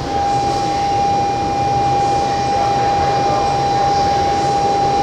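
A steady, high single-pitched electronic tone sounds for about five seconds and cuts off sharply. Under it, a JR E231-series commuter train rumbles past.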